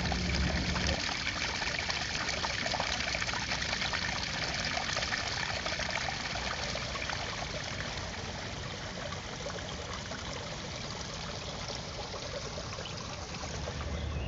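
Water trickling and splashing over mossy rocks in a small stream, a steady rushing that eases slightly in the second half.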